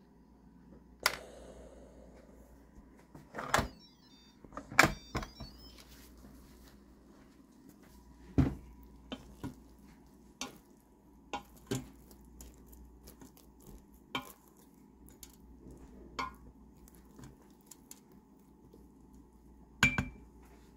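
Irregular clicks and knocks from handling an Instant Pot, then a wooden spoon knocking against the stainless steel inner pot as cooked Jerusalem artichoke chunks are stirred. The loudest knocks come about five seconds in and near the end.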